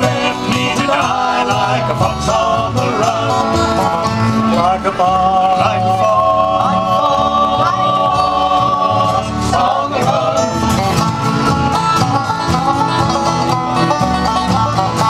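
Live bluegrass band playing: five-string banjo and acoustic guitars picking over a double bass, with three men singing in close harmony at one microphone. Near the end the fiddle comes in.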